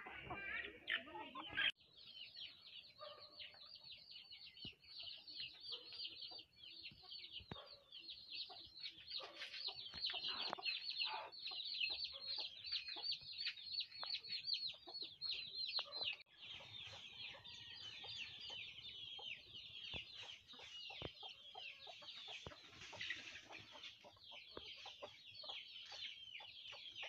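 Chickens calling, a dense, continuous stream of short, high peeping and chirping calls with clucks among them.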